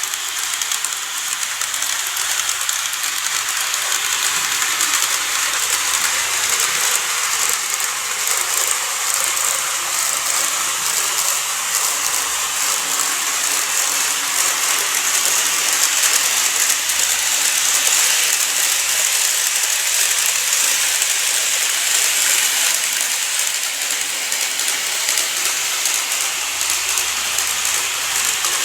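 N-gauge model train running on a layout: a steady, high-pitched rolling hiss of small wheels on the rails and the motor, holding on without a break.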